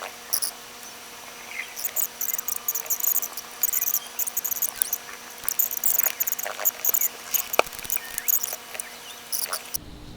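Paper towel wiping and squeaking over a laptop's CPU and heatsink in irregular quick scratchy strokes as the old thermal paste is cleaned off.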